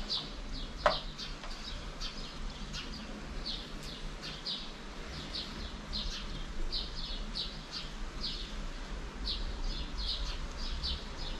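Small birds chirping: short high chirps repeating two or three times a second, often in quick pairs, with one louder falling note about a second in.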